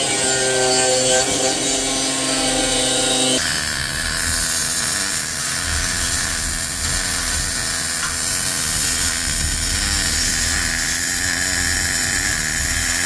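Angle grinder cutting 4 mm steel plate with a steady whine. About three seconds in it gives way to the continuous crackle and hiss of a MIG welder welding a steel engine-mount bracket.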